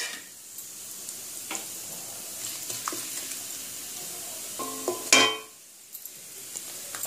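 Nigella and fennel seeds sizzling in hot mustard oil in a metal kadhai, with a few small crackles. About five seconds in, a wooden spatula scrapes against the pan, the loudest sound.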